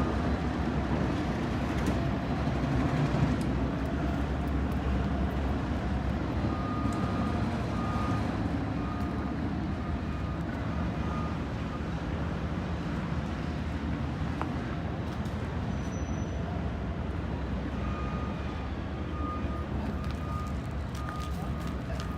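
Heavy construction vehicle engine running steadily, with its reversing alarm beeping at an even pace in two runs, the first about a third of the way in and the second near the end.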